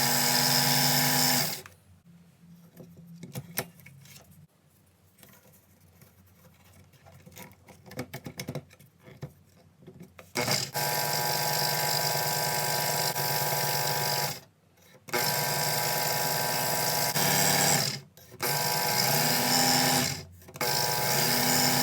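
Small electric power tool running with a steady whine, switched off about a second and a half in, then several seconds of light clicks and handling. It starts again about ten seconds in and runs in bursts, stopping briefly three times.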